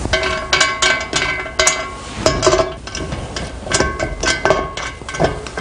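Steel parts of a clay-target trap frame knocking together as the pivots are fitted to the T-bar: about ten irregular metallic clanks, each leaving a short ringing tone.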